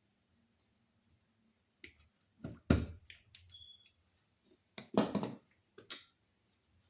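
Hand tools working on electrical wire for a wall outlet: a string of sharp clicks and snaps, the two loudest about three and five seconds in.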